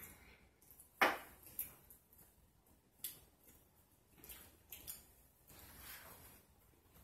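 Close-miked eating of pizza: chewing and lip smacking, a string of short sharp clicks, the loudest about a second in.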